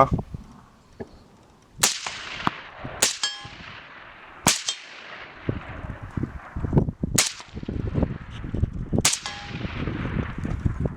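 Five shots from an AK-pattern rifle, a second or more apart and unevenly spaced. Steel target plates ring after some of the hits, and wind buffets the microphone between shots.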